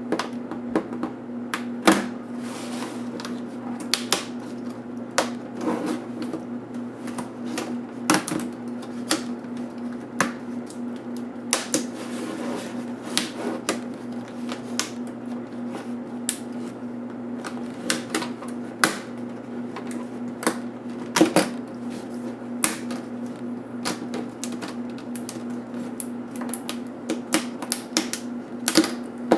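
Plastic snap clips of a Dell XPS M1210 display bezel clicking and cracking loose as the bezel is pried off the screen assembly by hand: irregular sharp clicks, some louder than others, over a steady low hum.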